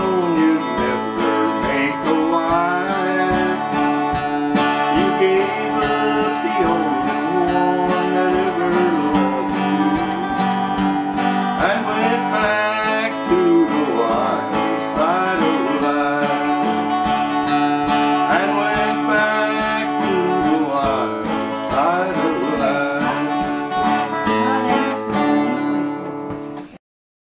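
Steel-string acoustic guitar playing a tune with ringing chords and melody notes. The sound cuts off suddenly near the end.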